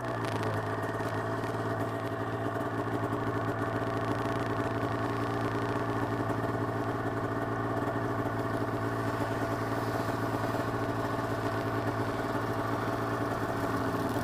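Snowmobile engine idling steadily after coming down off the throttle.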